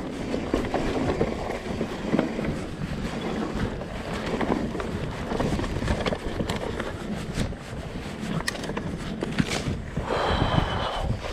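Mountain bike riding over a dirt trail: wind noise on the microphone with the rolling tyre noise and rattle of the bike, and sharp clicks and knocks as it goes over bumps.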